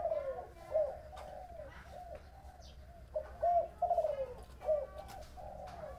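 Spotted dove cooing: two phrases of repeated coo notes, the second starting about three seconds in.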